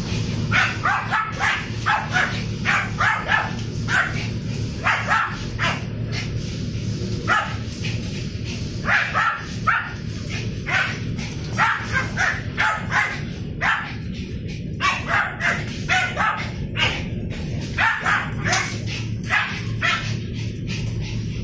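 Dogs barking in short, quick bursts, dozens of barks, while they play-fight. A steady low hum runs underneath.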